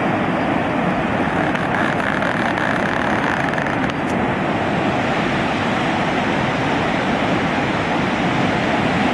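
River in flood rushing past: a steady, loud noise of fast, choppy water.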